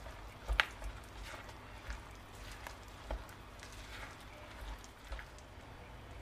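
Spatula stirring flour, butter and egg into a dough in a glass bowl: faint soft scraping with irregular taps and clicks against the glass, the sharpest about half a second in.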